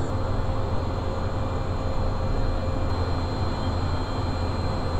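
Steady cockpit noise of a Cessna Citation 501 business jet with its Pratt & Whitney JT15D turbofans idling on the ground: an even low hum and rumble with a faint thin whine over it.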